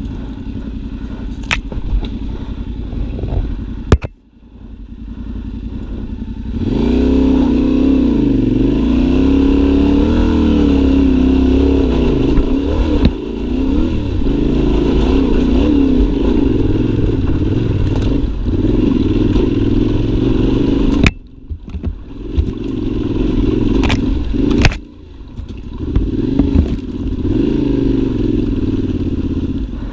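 Yamaha Ténéré 700 World Raid's parallel-twin engine running under load, the throttle opened and eased again and again so the note rises and falls. It starts quieter, with a sharp knock about four seconds in, then pulls steadily louder. Near two-thirds through the engine note drops off suddenly, then comes back in several bursts of throttle.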